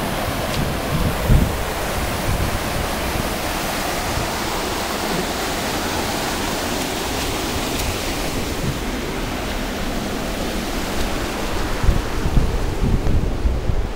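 Steady rain falling on wet pavement, with water running along the gutter. Wind starts buffeting the microphone near the end.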